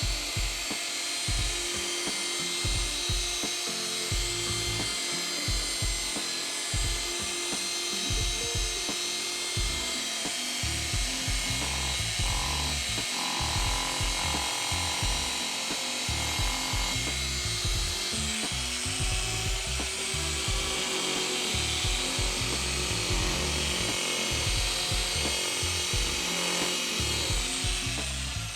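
Background music with a steady beat, and a power polishing tool running under it as a plastic taillight lens is buffed with polishing compound.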